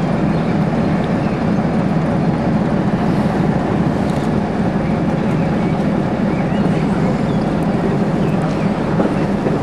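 Mobile cranes' heavy diesel engines running steadily under load while lifting a tram, a constant low drone.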